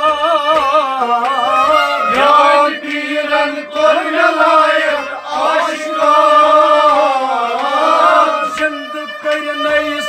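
Kashmiri Sufi devotional song: male singing with wavering held notes over harmonium, sarangi and rabab, with a faint steady low drum beat.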